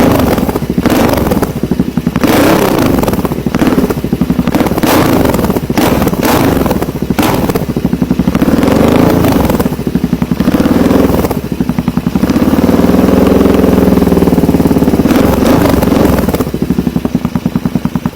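Royal Enfield Interceptor 650's 648 cc parallel-twin engine through a Diablo aftermarket muffler, being revved up and down repeatedly, with a longer, smoother rise and fall of revs about two-thirds of the way through.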